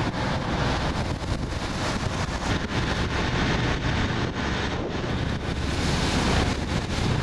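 Strong wind buffeting the microphone aboard a boat under way on open water, with waves splashing and a low, steady engine drone underneath.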